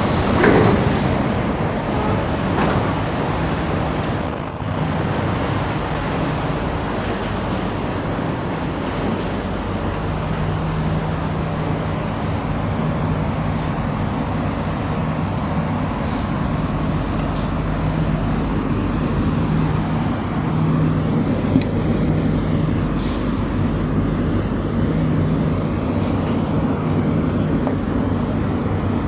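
Steady low hum and rumble of a Singapore MRT train standing at the station platform, after a brief loud burst at the very start as the train and platform screen doors open. A low hum swells and fades over the second half.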